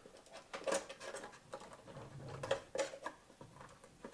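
Knife point stabbing drainage holes into the bottom of a juice container: irregular sharp clicks and scratchy taps.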